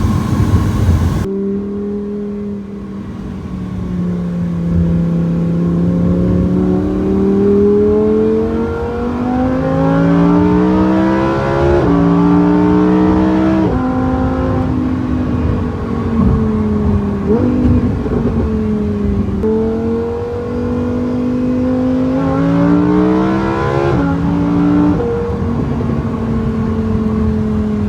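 Lamborghini Huracán Performante's V10 engine in Sport mode accelerating through the gears: its pitch climbs steadily and drops sharply at each upshift, several times over.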